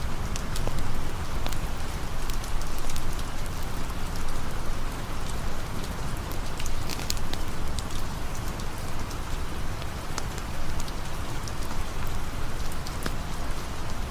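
Steady rain falling, with scattered sharp ticks and drips throughout.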